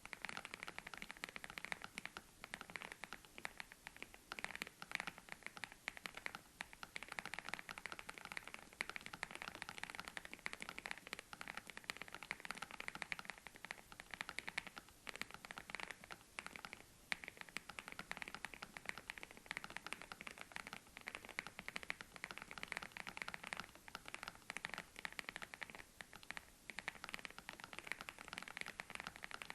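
Mechanical keyboard fitted with WS Morandi linear switches being typed on steadily, a continuous run of fast keystroke clacks without pauses.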